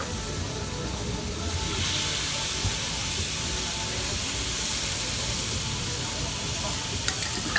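Food sizzling on a hot griddle at a street food stall: a steady hiss that swells about a second and a half in and holds, with a couple of sharp clicks near the end.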